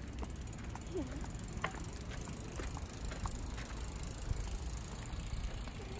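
Bicycle towing a tag-along trailer bike rolling along wet pavement: a steady low rumble of tyres and movement with scattered light clicks and ticks.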